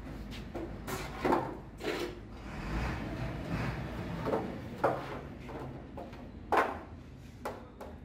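Steel truck brake shoe and plate knocking and scraping against a sheet-metal tray as they are turned over and scrubbed by hand: several separate clunks with rubbing in between.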